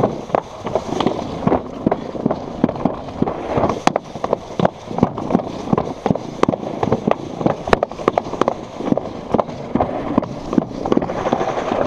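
Plastic alpine-slide sled running fast down a concrete track: a continuous rattling rumble with many irregular sharp clacks and knocks.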